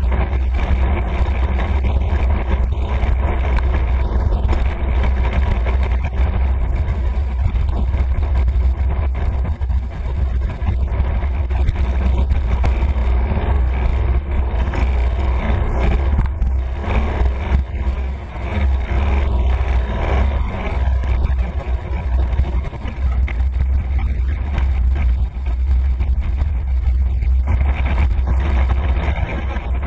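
Steady wind rumble and road noise on the microphone of a camera moving along a road, with cars passing close by.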